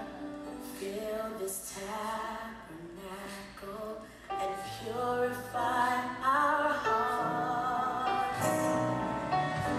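Gospel song with a woman singing the lead melody over sustained instrumental backing.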